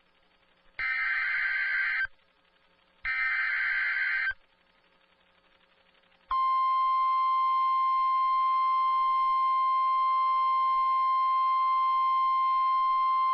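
Two bursts of Emergency Alert System SAME header data from a NOAA Weather Radio broadcast, each a harsh warbling digital screech about a second and a quarter long, a second apart. About six seconds in, after a short near-silent gap, the steady 1050 Hz weather radio warning alarm tone begins and holds.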